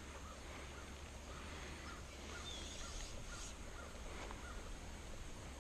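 Faint outdoor ambience: distant birds chirping and calling in short scattered notes over a steady low rumble.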